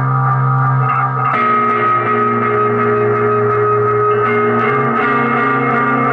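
Instrumental post-rock played live by a band: electric guitars ringing sustained chords over bass guitar, changing chord about a second and a half in.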